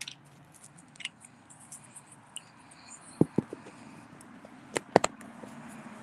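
Handling noise of a phone being positioned on a stand: scattered sharp clicks and knocks, the strongest about three seconds in and two close together near five seconds, over a faint steady hiss.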